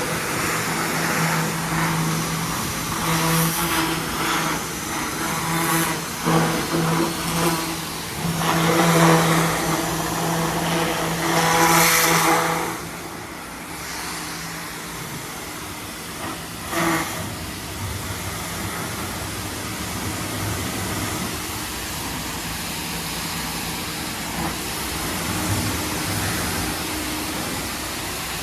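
A machine running with a steady engine hum, with loud surges of hissing spray during the first half. After about 13 seconds it drops to a quieter steady hiss over a low rumble.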